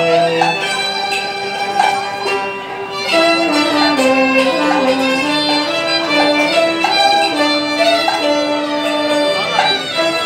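Chinese instrumental ensemble playing a lively melody: a bowed Chinese fiddle carries the tune with saxophone and bamboo flute (dizi), over a hammered dulcimer (yangqin).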